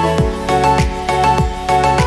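Background music: melodic notes over a steady beat of deep drum hits, a little under two a second.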